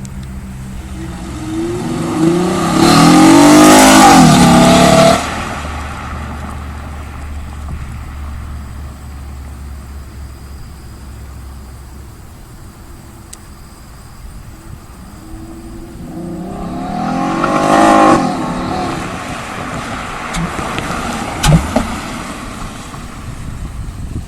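2006 Mazda 6 V6 fitted with a BCP cold air intake, revved twice as heard from behind the exhaust. The pitch climbs quickly and holds for a few seconds at the loudest point, then falls back to idle. The second rev, later on, is shorter, and a brief sharp click comes near the end.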